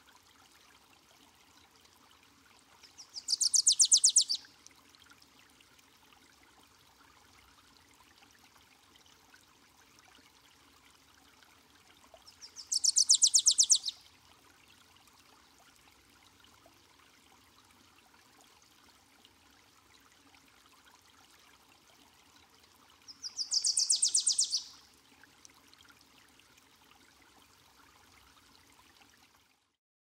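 Wilson's warbler singing three times, about ten seconds apart; each song is a rapid chatter of high notes lasting about a second and a half. A faint steady hiss runs underneath.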